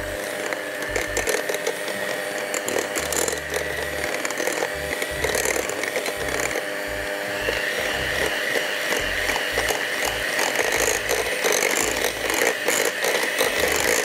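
Electric mixer running steadily, its motor giving a high whine as it beats cake batter in a bowl.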